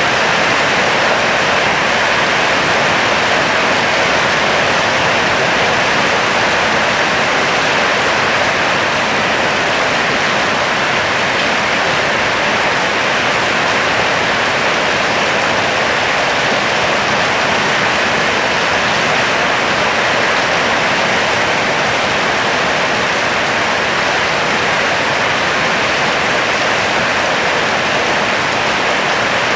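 Steady, loud shower of falling water, like heavy rain, with no break or change.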